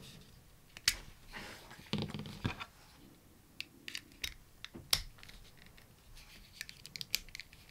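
Handling noise of small equipment close to the microphone: scattered sharp clicks and short rustles. The loudest click comes about five seconds in, with a patch of rustling about two seconds in.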